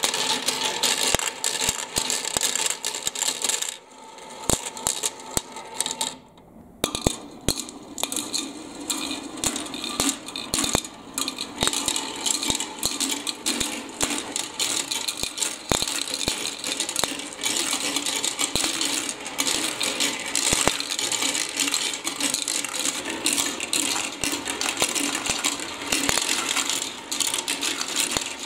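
Small balls rolling and clattering down a plastic marble run: a dense stream of clicks and rattles as they run along the chutes, drop through tubes and knock together in the catch trays. The clatter thins to a few scattered clicks about four seconds in, then builds back up a few seconds later.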